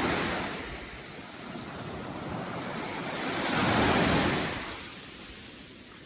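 Small sea waves washing in at the shoreline. The surf eases off in the first second, then one wave swells and breaks about four seconds in before fading.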